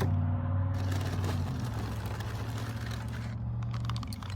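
Passing road traffic: a vehicle engine's steady low drone that shifts pitch slightly about a second and a half in, with a few light clicks near the end.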